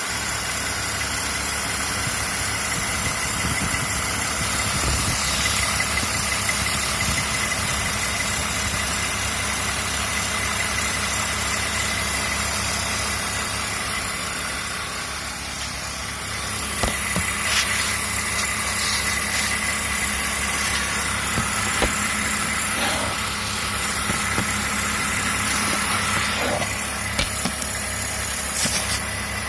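BMW E46 engine idling steadily, with a thin high whine running over the engine note and a few short sharp clicks in the second half. It is recorded as a strange noise the owner wants identified.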